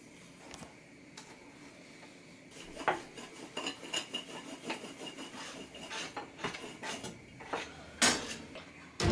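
Rolling pin working a round of paratha dough on a marble board: rubbing strokes with light irregular knocks as the pin moves back and forth. A sharper knock comes near the end as the pin is set down.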